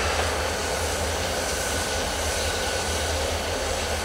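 Two CSX GE ES44AH diesel locomotives running steadily as they move slowly through the yard: a constant low engine hum with a faint steady high whine over it.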